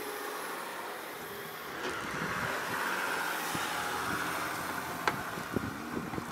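Land Rover Discovery pulling a small box trailer up a soft sand track, its engine under load and heard from outside behind a steady hiss. A few sharp knocks near the end.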